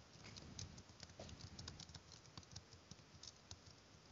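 Faint computer keyboard typing: a quick, irregular run of light key clicks.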